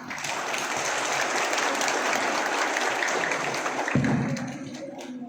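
A group clapping, a dense patter of hand claps that dies away after about four seconds, with a short louder low sound as it fades.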